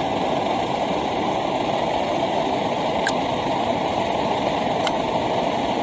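Optimus Nova pressurized liquid-fuel stove burning steadily at full flame, its freshly cleaned jet giving an even rushing hiss. Two faint ticks come a little past halfway and near the end.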